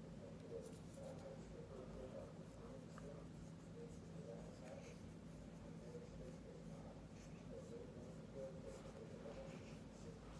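Faint, soft rubbing and rustling of fingertips working powder blush into the skin of the cheek, over a low steady room hum.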